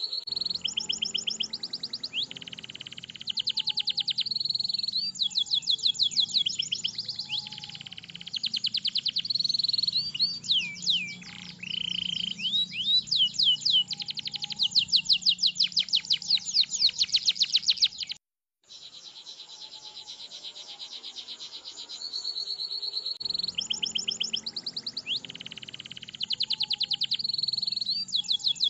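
Domestic canary singing a long, fast song of rolling trills and rapid repeated high chirps with sweeping notes. The song breaks off briefly about two-thirds of the way through, then carries on.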